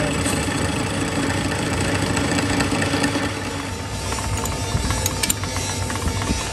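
Metal lathe running with its chuck spinning, then winding down and stopping about halfway through. A steady machine hum carries on after it stops, and a couple of sharp metallic clicks come near the end.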